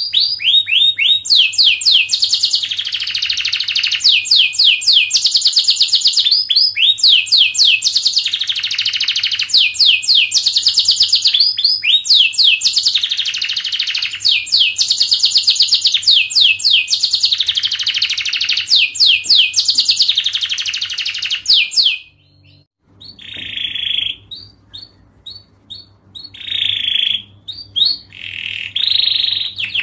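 Domestic canary singing a long, fast song: tight rapid trills of falling notes repeated in phrases every couple of seconds. About 22 seconds in, the trills break off and give way to shorter, separate chirps.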